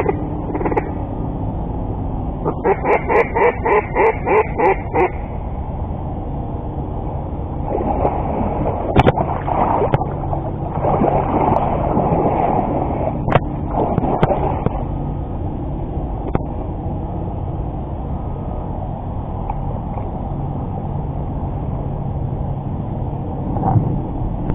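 A rapid run of about ten duck quacks, roughly four a second. About three seconds later comes splashing and sloshing in water, with a few sharp knocks, over a steady low hum.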